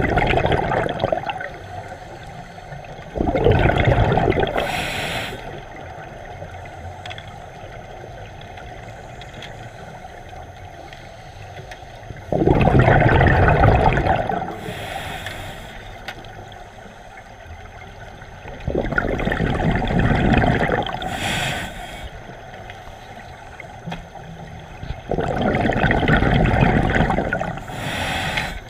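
Scuba diver breathing through a regulator underwater: five bursts of exhaled bubbles, each rumbling for about two seconds at uneven intervals, each followed by a short hiss from the regulator.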